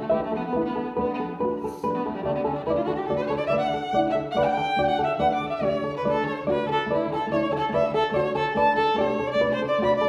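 Viola played with the bow: quick repeated low notes pulse under a higher melodic line, with a rising slide about three to four seconds in.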